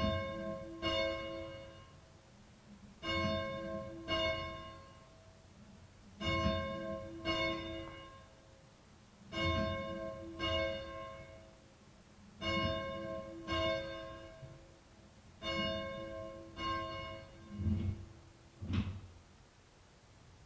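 A church bell ringing in pairs of strokes about a second apart, each pair about three seconds after the last. The strokes hum on after each strike. Near the end the last two strokes are duller, and the ringing stops.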